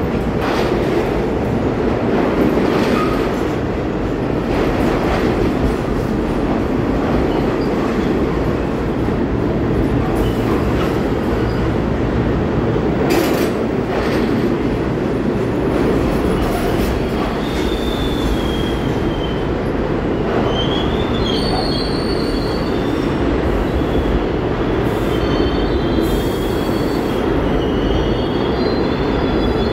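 R46 subway train rolling into an underground station, its wheels rumbling steadily on the rails as it slows. From about halfway in, the wheels squeal in short, high, repeated tones.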